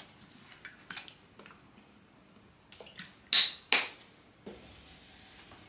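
Worcestershire sauce bottle handled and poured over a stainless steel pot of meatloaf mix: a few faint clicks, then two short, sharp sounds a little over three seconds in.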